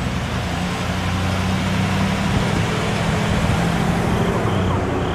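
A vehicle engine idling: a steady low hum under a constant hiss of outdoor noise.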